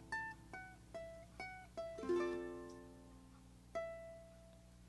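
Background music: a plucked string instrument picking a slow melody of single notes, each ringing and fading, with a fuller chord about two seconds in.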